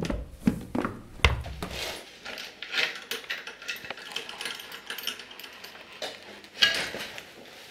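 Bicycle repair work: a few heavy metal knocks, then a socket ratchet clicking in quick runs as the crank bolt is turned, with one sharp knock near the end.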